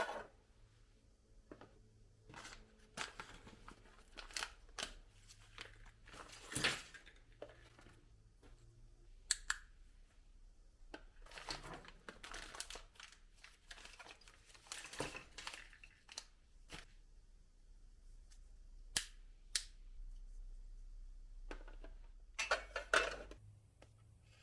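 Irregular clicks, scrapes and rustles of hand work with tools and materials, with a few sharper snaps and a faint low hum near the end.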